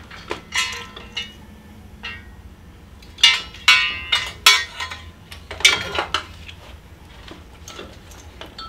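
Hand tools and metal parts clinking and clanking on a motorcycle's front end as it is taken apart by hand: sharp, ringing metal knocks, a couple in the first second or so and a bunch of louder ones in the middle, then only light ticks.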